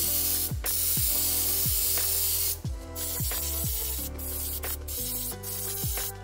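Gravity-feed airbrush spraying paint with a steady hiss, stopping for a moment about halfway through and several times near the end. Background music with a steady beat plays underneath.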